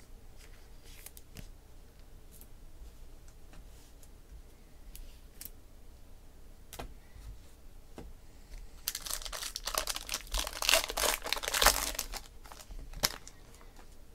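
Faint clicks and taps of trading cards being handled, then, about nine seconds in, a few seconds of loud crinkling and tearing of a foil trading-card pack wrapper being ripped open.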